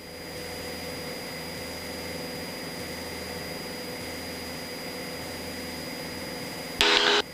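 Cessna 172's engine and cabin noise as a steady drone with a hiss over it, at climb power just after takeoff. A short burst of a voice cuts in near the end.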